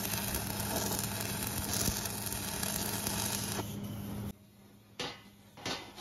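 Steady hissing noise with a low hum that fades out about four seconds in, followed by two sharp knocks near the end.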